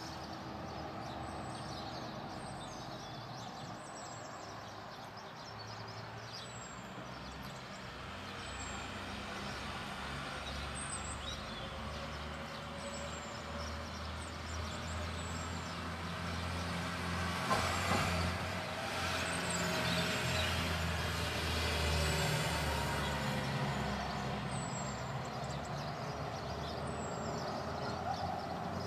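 A motor vehicle's engine rumble building up, loudest about two-thirds of the way in, then easing off. Short, high falling chirps of small birds repeat every second or two throughout.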